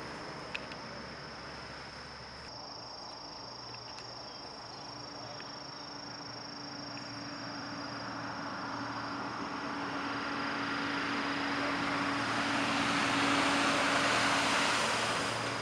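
Highway traffic: a passing vehicle's noise swells over several seconds and is loudest near the end, over a low engine hum and a steady high-pitched whine.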